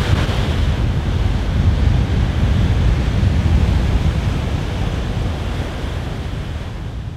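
Ocean surf and wind buffeting the microphone: a steady, low-heavy rush of noise that slowly fades out near the end.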